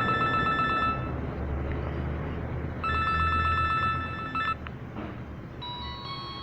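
An LG mobile phone playing an electronic ringtone that imitates an old telephone bell: a fast-pulsing high ring sounds for about a second, pauses, then rings again for about two seconds. Near the end a different, melodic ringtone begins.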